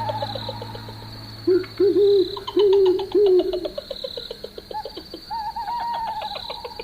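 Owls calling in a night ambience: about four short low hoots a little past a second in, with quick runs of notes that slide downward in pitch before and after them. A steady high-pitched tone with faint pulsing runs underneath.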